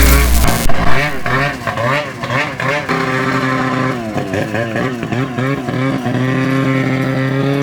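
Ski-Doo 850 Turbo snowmobile's two-stroke engine revved in a quick series of throttle blips, about two a second, then held at a steady, slowly rising speed for the last couple of seconds. A heavy thump opens it.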